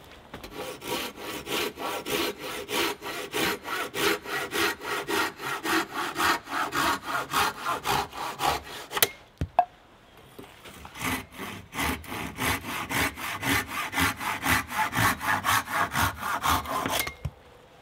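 Curved pruning saw cutting into a round-wood pole in quick, even back-and-forth strokes. There are two long runs of sawing, broken about halfway by a short pause with a couple of knocks.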